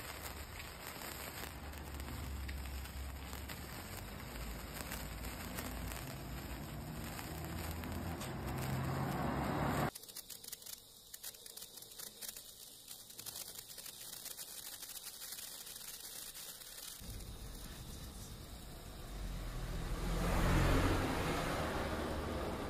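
Handheld sparklers fizzing and crackling. About ten seconds in the sound drops sharply to quieter, scattered crackles, and a low rumble swells near the end.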